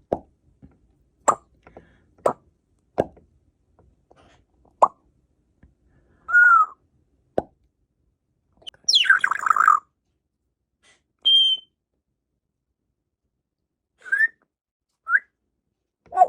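African grey parrot making a string of sharp pops, with short whistles, a harsh call that falls in pitch about nine seconds in, and brief chirps near the end.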